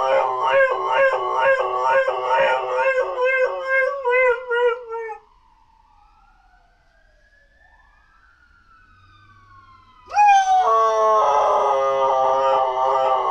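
Dog howling in long, wavering notes for about five seconds, then falling quiet while a faint siren wails in slow rising and falling glides, then howling again from about ten seconds in.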